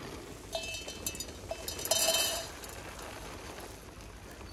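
Freshly puffed grain pouring out of a cloth bag into a stainless steel bowl. It comes in two spells of light clinking and rushing, the bowl ringing as the grain hits it, louder about two seconds in.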